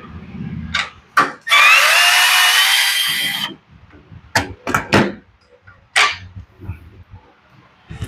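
A cordless drill-driver motor runs for about two seconds, its pitch rising slightly, while backing out a bolt holding the carburetor and air-cleaner housing on a small tiller engine. It is followed by a few short clicks and knocks of metal parts being handled.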